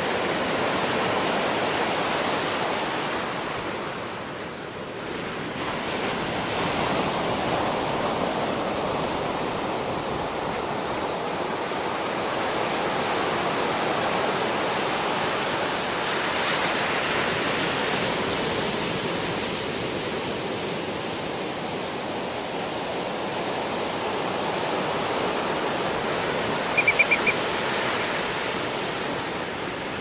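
Ocean surf breaking and washing up a sandy beach: a steady rush that swells and eases as each wave comes in. Near the end a brief, quick run of four or five high notes sounds over it.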